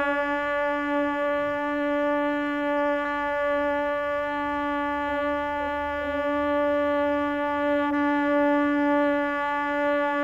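Conch shell (shankha) blown in a long, steady note.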